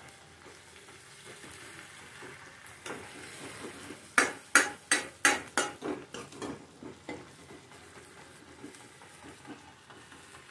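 Onion-tomato masala frying in a kadai with a steady sizzle while a metal ladle stirs and scrapes it. About four seconds in comes a quick run of sharp knocks of the ladle against the pan, about three a second, fading out over the next three seconds.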